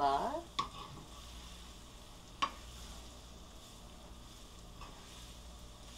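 Pesto pasta frying quietly in a non-stick pan as it is toasted and stirred with a spatula, with two sharp knocks of the spatula against the pan, about half a second in and about two and a half seconds in.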